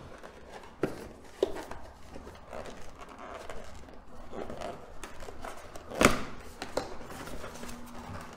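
Cardboard box being handled and opened by hand: rustling and scraping of the cardboard with a few sharp knocks and taps, the loudest about six seconds in.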